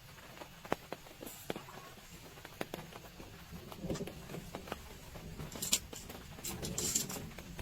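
Scattered raindrops tapping irregularly on a tent or tarp, with a spell of rustling about five to seven seconds in.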